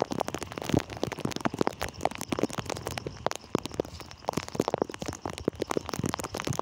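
Heavy rain falling, heard as a dense run of irregular drop clicks hitting close to the microphone.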